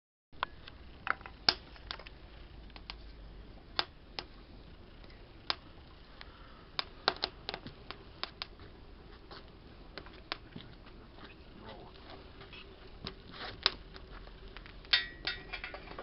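Irregular sharp clicks and light metallic knocks from handling a homemade steel camp stove, coming thicker near the end as a metal tool knocks against the stove's base.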